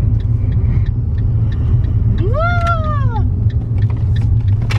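Steady low engine and road rumble inside a moving car, with light regular ticks. About halfway through, a single meow-like call rises and then falls, lasting about a second.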